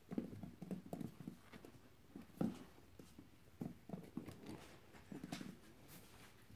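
Puppies scrabbling about on bare wooden floorboards: faint, irregular taps and clicks of their paws and claws, a little louder about two and a half seconds in.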